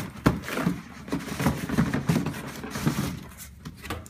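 Cardboard shipping boxes being handled and opened: a run of rustles, scrapes and light knocks of cardboard, busiest at first and tapering off near the end.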